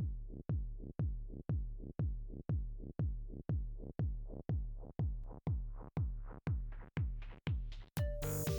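Electronic dance music: a deep kick drum on every beat, two per second, under a rising sweep that builds, until the full track with sustained synth chords comes in about eight seconds in.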